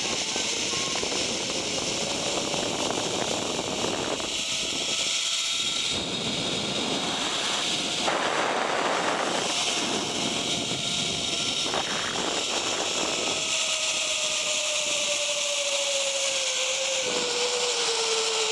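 Zip line trolley pulleys rolling along the steel cable with a whine, over a steady rush of wind on the microphone. The whine rises in pitch in the first few seconds as the trolley speeds up, then falls steadily through the second half as it slows toward the landing.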